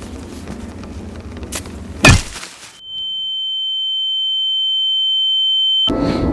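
Film sound-design effect: a sudden loud hit about two seconds in, then a single high, steady tone held for about three seconds. The tone swells slightly and cuts off suddenly.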